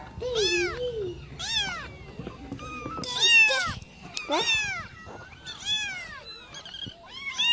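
Ginger kittens meowing: about six high-pitched calls, each rising and falling in pitch, roughly a second apart.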